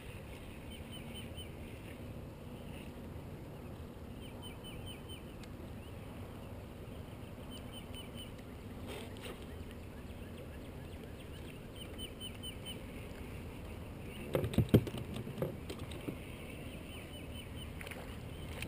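Quiet ambience on a small fishing boat on calm water, with a short chirping trill repeating every few seconds and a cluster of loud knocks and thumps about three-quarters of the way through.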